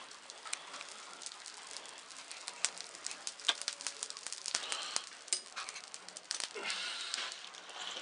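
Glowing embers crackling and popping irregularly, with a bird calling in the background near the end.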